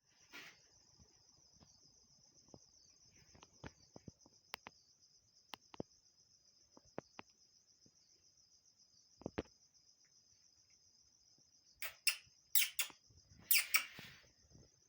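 A steady, high, pulsing insect trill runs throughout, with scattered faint clicks. Near the end come a few loud bursts of bird chirping.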